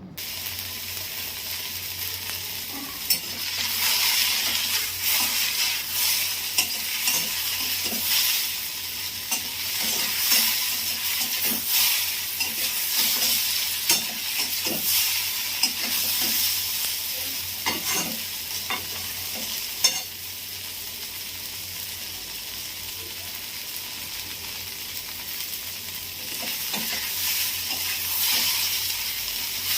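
Sliced okra frying in hot oil in a kadai, sizzling steadily while a utensil stirs it, clicking and scraping against the pan again and again. The sizzle drops quieter about two-thirds of the way through and picks up again near the end.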